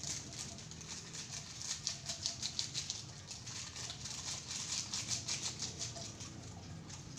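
Chicken frying in hot oil: a dense, steady crackle of many small spattering pops, busiest in the middle.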